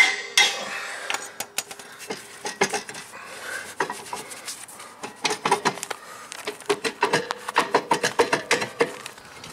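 Rusted rear brake drum on a 2014 Jeep Patriot being knocked and worked with a metal tool to break it free of rust: irregular metal clanks and scrapes with a ringing note, quickening to a run of about four knocks a second near the end.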